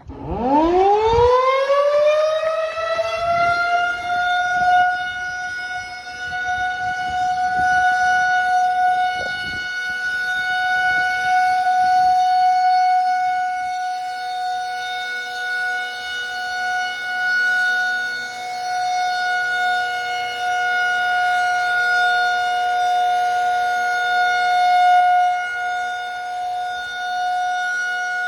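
Federal Signal 2001 electromechanical outdoor warning siren winding up from a standstill, its pitch climbing steeply over about three seconds, then holding one loud, steady tone rich in overtones: the siren's scheduled monthly test.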